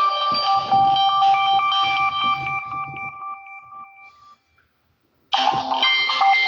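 Samsung Galaxy Mini 2 (GT-S6500D) built-in ringtone melody playing through the phone's speaker and dying away about four seconds in. After a second of silence, the next tone starts near the end.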